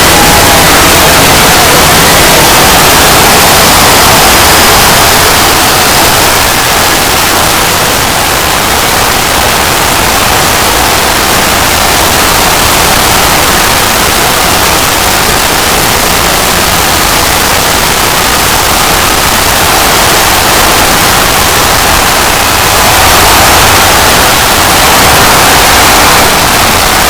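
Harsh, very loud static-like noise from an edited logo sound effect, filling the whole range at near full volume and holding steady, with a slight swell near the end.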